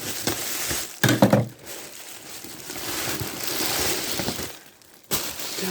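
Packing material and wrappers rustling and crinkling as a fruit box is unpacked by hand, with a louder handling noise about a second in.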